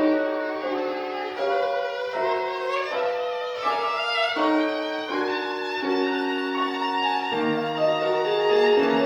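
Solo violin playing a melody of quick, changing notes, with piano accompaniment underneath.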